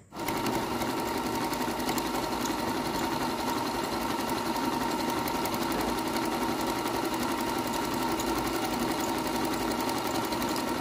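Electric household sewing machine, Japanese-made, running steadily at speed with rapid, even needle strokes as it sews an overlock stitch along a fabric edge. It starts up abruptly at the very beginning.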